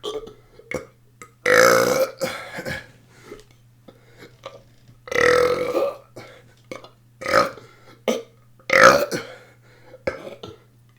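A person burping on purpose, one belch after another. Two long drawn-out burps come about a second and a half in and about five seconds in, then two shorter ones near seven and nine seconds.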